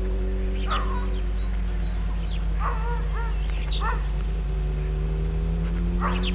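Birds calling in short chirps and falling whistles over a steady low rumble with a few faint held tones.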